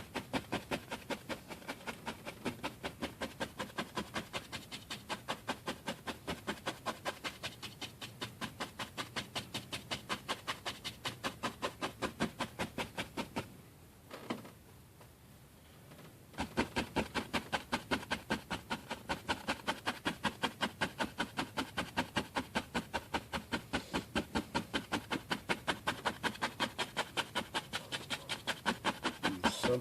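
Paintbrush dabbed repeatedly against a stretched canvas, stippling in tree shapes: quick, even taps about four a second, pausing for a few seconds midway.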